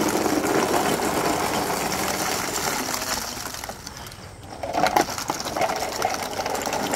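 Many small plastic balls pouring out of a plastic tub and bouncing on a tarp-covered floor, a dense rattling clatter of small impacts that eases off about four seconds in and then picks up again.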